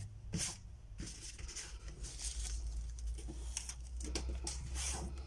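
A hand rubbing and pressing down on paper artwork and a paper mat to flatten the buckled sheet: a run of short paper swishes and rustles, over a low steady hum.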